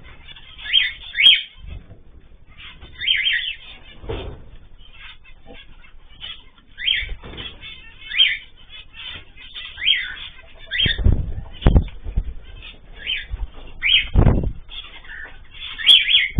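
Small cage birds chirping in short repeated calls about once a second, with wing flapping and a few heavy low thumps among them.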